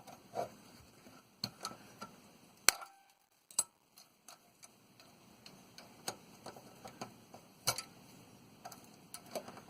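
Irregular clicks, taps and knocks of metal tools and small metal parts being handled while a hot water tank pressure relief valve is taken apart, with two sharper knocks, one about a third of the way in and one about three-quarters through.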